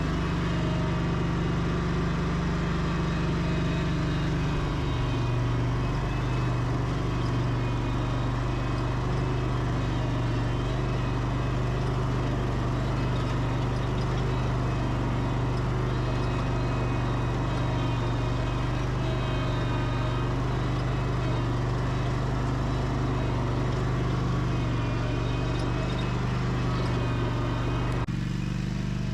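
2010 Exmark Laser Z zero-turn lawn mower engine running steadily at working speed. The sound changes abruptly near the end.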